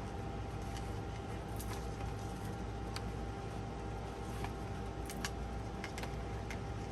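Faint, scattered ticks and clicks of a spiral notebook's wire coil being twisted out through the paper's punched holes, over a steady low hum.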